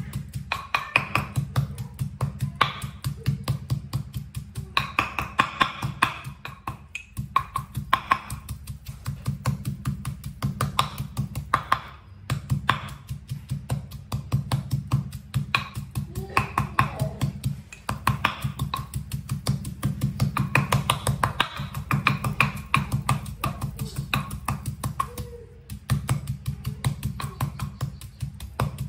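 Pestle pounding a moist yellow kroeung spice paste in a mortar: steady, rapid dull thuds, several strokes a second.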